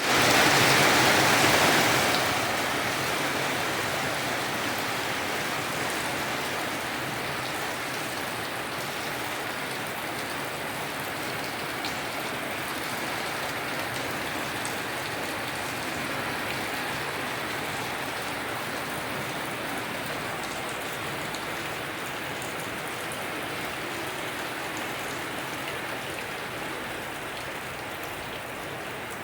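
Rain falling on a rooftop, a steady patter; it is heavier for the first two seconds, then settles to a steady, slowly easing fall.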